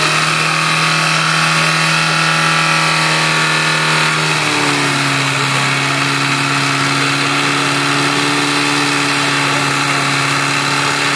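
Opel Vectra's engine running at a held steady speed. About four seconds in its pitch drops a step, then holds steady again.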